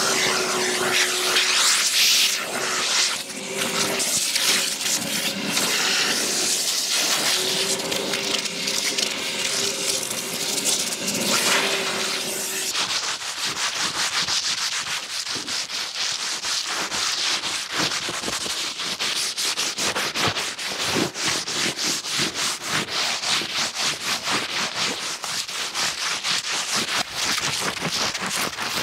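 Scrubbing on a car's surface during detailing, with a steady hum under it at first. The hum stops about halfway through, leaving a long run of fast, even rubbing strokes.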